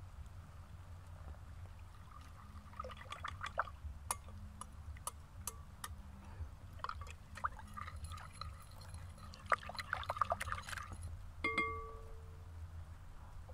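Metal spoon stirring a watery mixture in a glass bowl, clinking repeatedly against the glass. Near the end a single tap on the bowl leaves a clear ringing tone.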